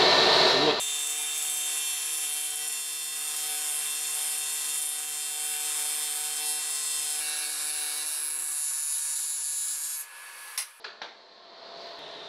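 A loud whir cuts off under a second in. A TIG welding arc then hisses steadily with a thin high whine for about nine seconds while a crack in an aluminium cylinder head's exhaust port is welded, and stops abruptly, followed by a few light clicks.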